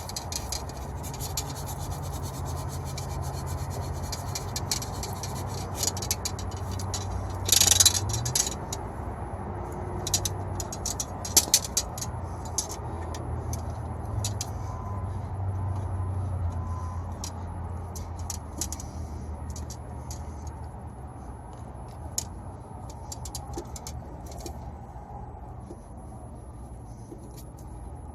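Copper tubing end being sanded by hand, a dense scraping for the first several seconds, followed by scattered sharp clicks and taps as the pipe and fittings are handled. A steady low hum runs underneath.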